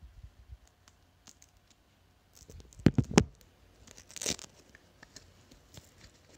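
Handling noise: a plush toy's fabric and the camera being rustled and scraped, with two loud thumps close together about three seconds in and a short burst of rustling a second later.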